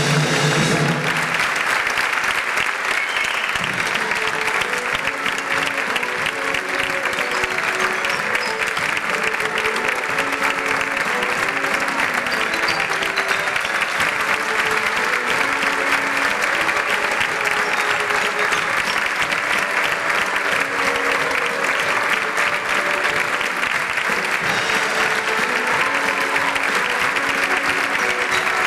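Audience applauding steadily through the curtain call, with a bouncy melody of held notes playing under the clapping. A loud held chord cuts off about a second in as the clapping takes over.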